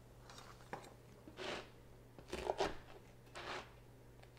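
Soft kitchen handling sounds: a light tick and a few brief scrapes and rustles as pizza and plate are handled on the counter, over a steady low hum.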